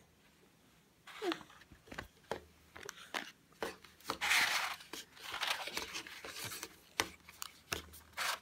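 Cardboard box of plasticine handled and slid open: cardboard scraping and rubbing, with scattered taps and clicks and a louder stretch of rustling in the middle.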